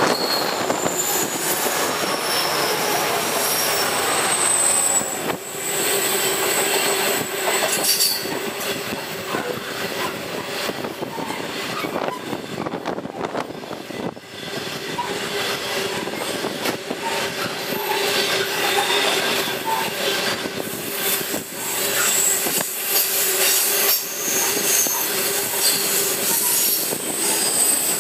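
Diesel-hauled coal train passing on a curve: the locomotives go by at the start, then coal hopper wagons roll past with high-pitched wheel squeal coming and going, over a steady rumble and clatter of wheels on rail.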